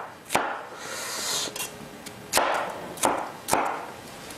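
Kitchen knife chopping bell pepper on a cutting board: a few separate sharp knocks of the blade striking the board, spaced unevenly.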